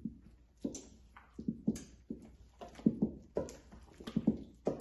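Wooden spoon folding thick, wet cake batter in a stainless steel bowl: irregular soft knocks and slaps, several a second, as the spoon works the batter against the bowl.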